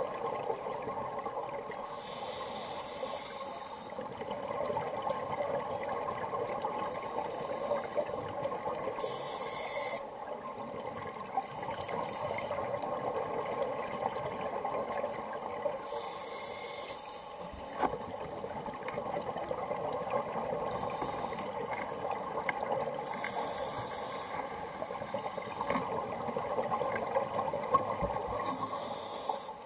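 Underwater, a scuba diver breathing through a regulator: a hiss of breath about every six to seven seconds, with fainter breaths between. A steady drone runs under it throughout.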